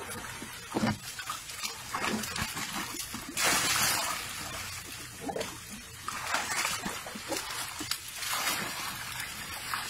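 Water poured from a bucket into a tub where a baby elephant stands, splashing and sloshing. The loudest pour comes a little over three seconds in, with more pours later. A few short animal calls sound among the splashing.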